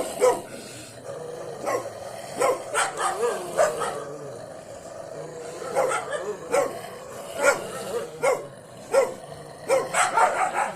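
A dog barking: a dozen or so short, sharp barks in irregular bursts.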